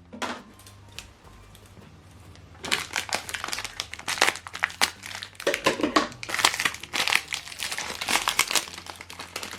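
Plastic packaging of an HP 305 ink cartridge crinkling as it is unwrapped by hand: quiet at first, then dense irregular crackling from about three seconds in.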